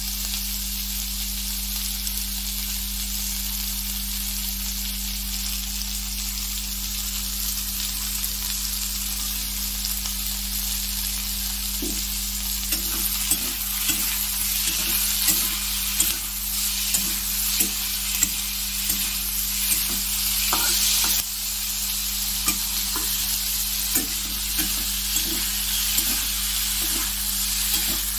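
Potatoes, onion and green capsicum sizzling in hot oil in a kadai, a steady hiss throughout. From about halfway, a metal spatula stirs them, with frequent short scrapes and knocks against the pan.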